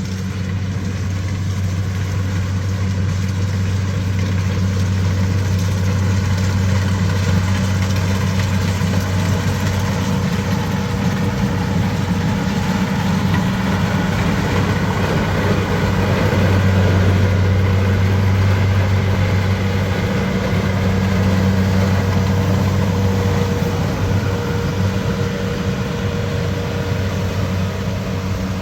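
Heavy machinery engine running steadily under a steady load, swelling a little louder about halfway through and then easing back.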